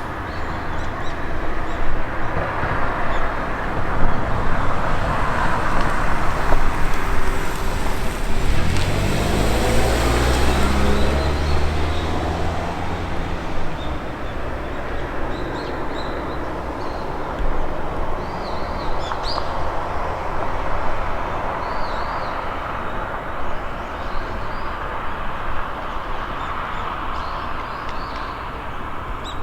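Outdoor traffic noise. A vehicle engine's low hum rises in pitch about 8 seconds in and holds for several seconds before fading. Small bird chirps are scattered through the second half.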